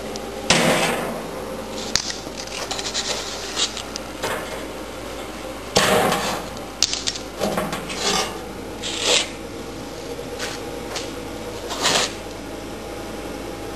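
Locking pliers clamped on a bolt of a snowblower's steel scraper bar, worked by hand: metal scraping and clanking as the bolt is loosened. There are a few loud clanks, about half a second in, around six seconds and near the end, with quieter scrapes between.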